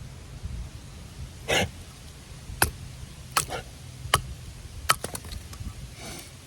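A baton knocking on the spine of a very thin knife, driving it through a small pine stick to split it: about seven sharp, irregularly spaced knocks.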